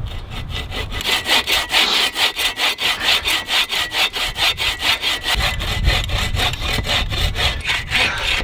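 A small bow saw cutting crosswise through a short log of wood. It goes in fast, even back-and-forth strokes, about four a second.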